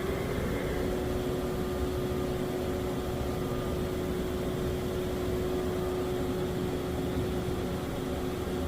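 Haas VF-3 vertical machining center running, a steady machine hum with one even whine held throughout.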